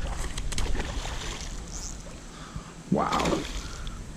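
Hooked largemouth bass splashing and thrashing at the surface during the fight, with a few sharp splashes near the start over a steady hiss.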